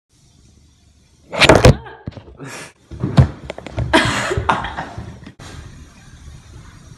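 A few knocks and thuds with brief scuffing and rustling between them, the loudest about a second and a half in, ending about five seconds in.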